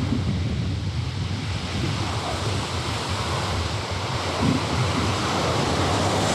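Ocean surf breaking and foaming whitewater washing in over the shallows, with wind rumbling on the microphone.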